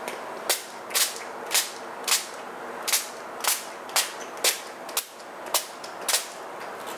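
Finger-pump spray bottle misting onto a sheet of paper: a quick hissing spritz about twice a second, eleven in all.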